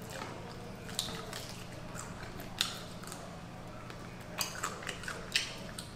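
Scattered clicks and clinks of cutlery against takeout food containers while eating: one about a second in, a louder one near the middle, and a quick run of clicks near the end, over a faint steady low hum.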